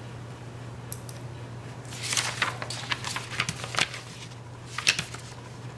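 Sheets of drawing paper rustling and a paintbrush scratching on paper, in several short scratchy bursts from about two seconds in, over a steady low hum.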